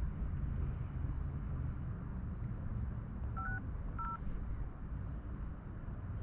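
Phone keypad touch tones as a number is dialled: three short two-note beeps about three and a half seconds in, over a low steady rumble of background noise.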